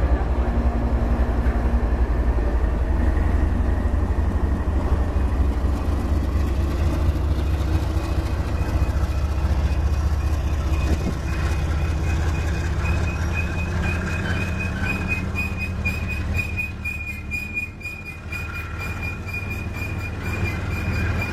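Freight train passing close by: the CSX GE diesel locomotive's engine drone as it goes past, then flatcars loaded with long welded rail rolling by. A steady high squeal joins about halfway through, with clicking near the end.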